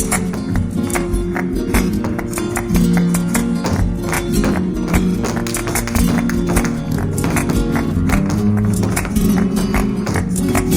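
Flamenco music for a farruca, led by guitar, with sustained low notes under a dense run of fast, sharp percussive strikes.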